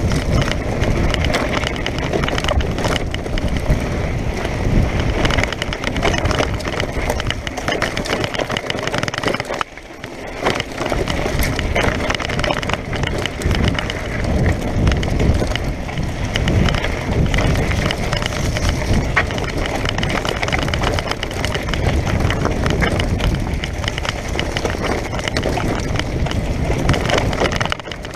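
Mountain bike descending fast on a rough, dry dirt trail: tyres crunching over loose gravel and the bike rattling over bumps, with wind rushing on the microphone. The noise drops briefly about ten seconds in.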